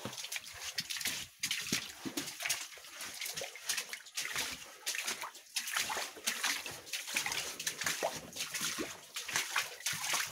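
Footsteps splashing and sloshing through shallow water on a mine passage floor, a steady run of wet steps.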